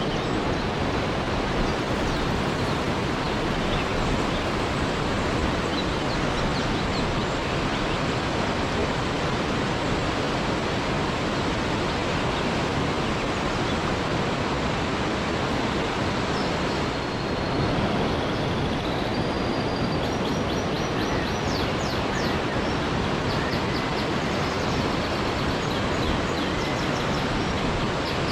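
Waterfall with water rushing in a steady, unbroken roar. Faint high chirping sits above it in the second half.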